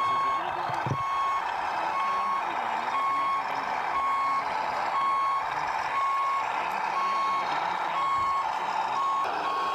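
Reversing alarm beeping steadily, one short single-pitched beep about every second, over steady background noise.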